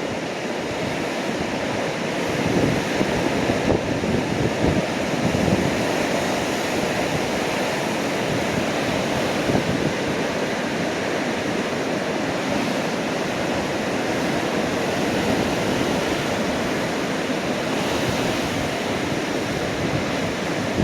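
Rough sea surging and breaking against rocky sea cliffs, a continuous wash of surf, the heavy swell left behind by a passing typhoon. Wind buffets the microphone now and then.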